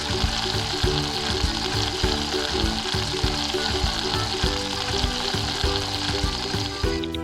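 Frying sizzle over light background music with a steady beat. The sizzle cuts off just before the end, leaving only the music.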